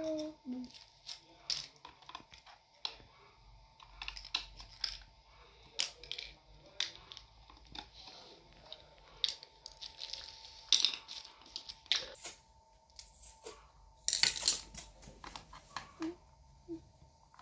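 Screwdriver undoing the screws of a standing fan's plastic rear motor housing: scattered clicks, scrapes and rattles of plastic and small metal screws, with a louder patch of scraping about fourteen seconds in.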